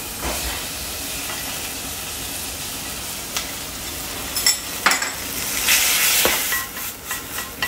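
Fresh cherry tomatoes sizzling and frying in hot olive oil and garlic in a stainless steel pan. The sizzle swells about six seconds in, and a wooden spoon knocks against the pan a few times as the tomatoes are stirred.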